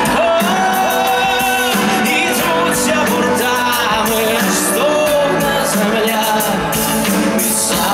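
Ukrainian pop-rock band playing live through a large PA, a male lead singer singing over electric guitars, drums and keyboard.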